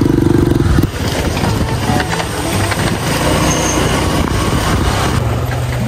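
Motorcycle engine running, loud and rhythmic for about the first second, then dropping in level to a rougher mix of engine hum and road noise.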